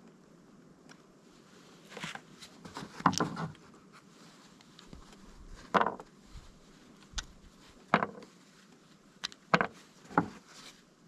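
Scattered knocks and clatters of tools and parts being handled during workshop repair work, about half a dozen sharp hits with quieter rubbing between them.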